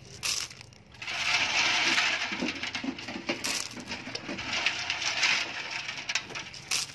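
Small river clam shells rattling and clicking against one another in a plastic basket: a knock just after the start, then a dense clatter of many small shell-on-shell clicks from about a second in.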